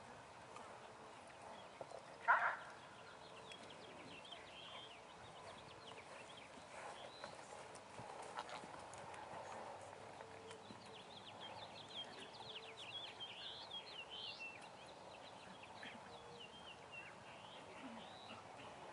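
Faint hoofbeats of a horse moving over a sand arena, with one brief loud call about two seconds in.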